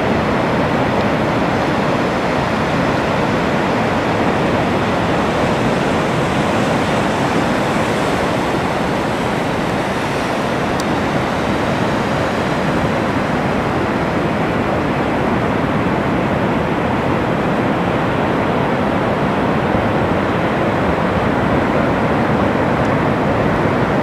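Surf: waves breaking and washing onto the beach in a steady, continuous rush.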